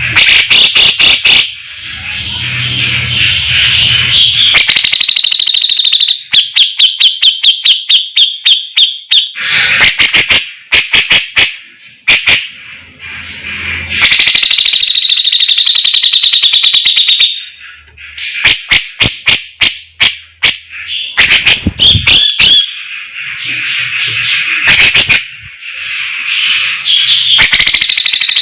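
A grey-cheeked bulbul (cucak jenggot) singing loudly: fast runs of sharp repeated notes and long, high, rattling trills, in bursts broken by short pauses.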